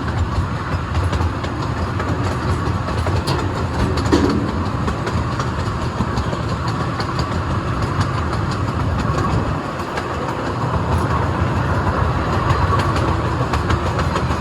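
Zoo train running along its track, heard from aboard a coach: a steady rumble with frequent light clicks of the wheels over the rails.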